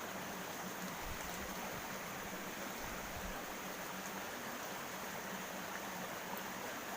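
Small waterfall and mountain stream water rushing steadily, with a faint low hum throughout and a few soft low bumps about a second and three seconds in.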